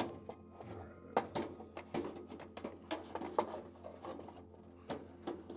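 Irregular light clicks and knocks as a fake fireplace log with its LED light and wiring is handled and fitted down into an electric fireplace insert.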